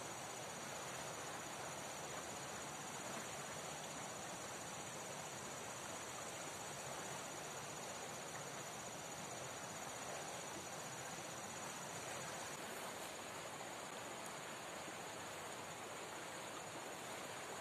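Steady rush of river water with a continuous high-pitched insect trill over it.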